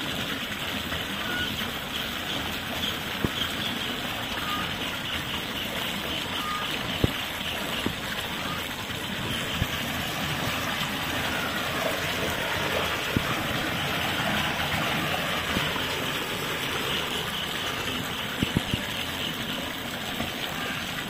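Steady rush of running water in a fish-holding tank, with a few short sharp knocks.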